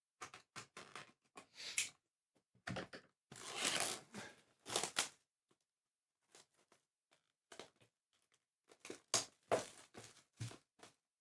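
A sealed trading card booster box being torn open: irregular tearing, crinkling and rustling of its packaging, with a longer tearing stretch a few seconds in.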